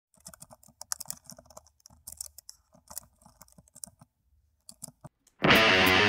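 Quiet key clicks in irregular runs with short pauses, typical of typing on a computer keyboard. About five seconds in, much louder electric-guitar music starts abruptly.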